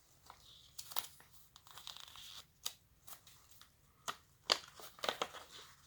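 Faint crinkling, tearing and clicking of a plastic-and-paper candy dispenser package being opened and handled by hand.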